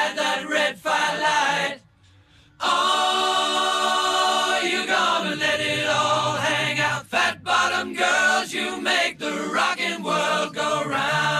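Background music of a choir singing, with a brief break of near silence about two seconds in.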